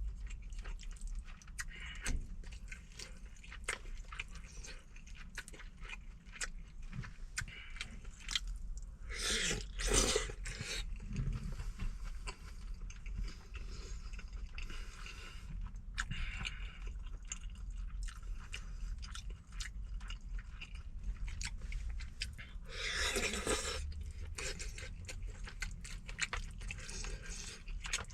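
A person chewing and eating braised chicken and rice, with close wet mouth clicks throughout. There are two louder, noisy bursts, about ten seconds in and again late on.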